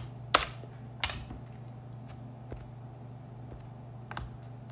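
A few sharp clicks of fingers tapping on and handling the phone that is recording, the loudest about a third of a second in, others near one second and near the end, over a steady low hum.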